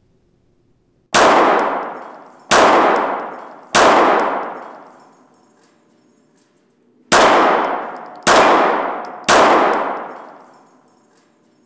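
Smith & Wesson M&P Shield pistol firing six shots in two strings of three, each shot ringing out with a long echo in an indoor range.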